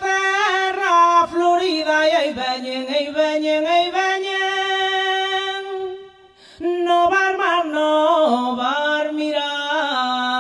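A woman's voice singing a melody in Galician traditional style, ornamented with slides between long held notes. The singing breaks briefly for a breath about six seconds in, then goes on lower.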